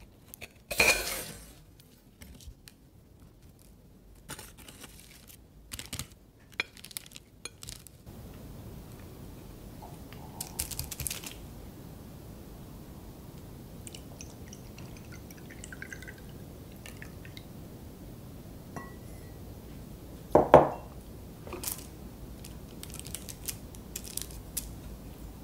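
Knife and fork cutting a scone on a ceramic plate: scattered clinks and scrapes of metal cutlery on the plate, with a louder scrape about a second in and a dull clunk about twenty seconds in.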